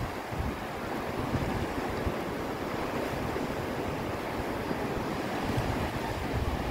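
Ocean surf washing onto a sandy beach, a steady rushing, with wind gusting on the microphone underneath.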